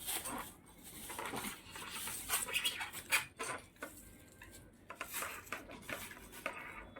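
Small hard plastic and metal parts of an electric drill kit clicking and clattering irregularly as they are handled, with some rustling of packaging.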